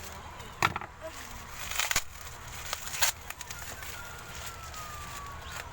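Plastic parcel packaging and sticky tape crinkling and tearing as a taped courier package is pulled open, with a few sharp crackles in the first half. A faint falling whistle can be heard in the background in the second half.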